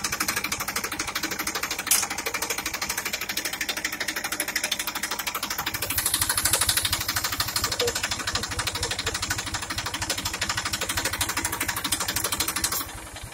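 Massey Ferguson 241 tractor's three-cylinder diesel engine running, a fast, even clatter of firing strokes. It grows a little louder about six seconds in and cuts off abruptly near the end.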